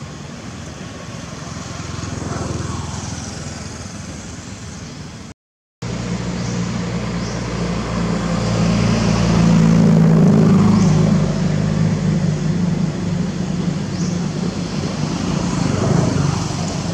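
A motor vehicle's engine running close by, a steady low hum that swells to its loudest in the middle and then eases off, over rough outdoor background noise. The sound drops out briefly about five seconds in.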